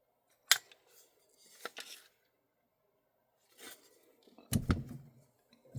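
Handling noise from a gas blowback airsoft rifle: a sharp click about half a second in, a few lighter clicks and rustles, and a heavier thump about four and a half seconds in.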